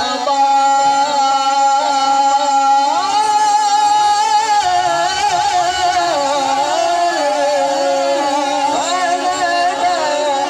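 A young man's voice reciting the Quran in a melodic tajweed style, amplified through a handheld microphone. It holds one long steady note, then about three seconds in breaks into slow ornamented slides up and down in pitch.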